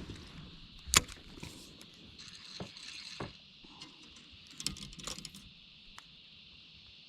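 A few scattered knocks and clicks, the loudest about a second in, over a steady high-pitched hiss.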